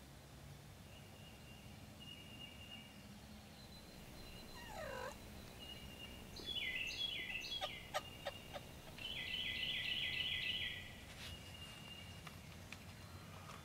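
Wild turkey gobbling from the roost: a gobble about six and a half seconds in, then a louder, longer rapid rattling gobble about two seconds later. Songbirds sing faintly throughout, and a few sharp clicks come between the gobbles.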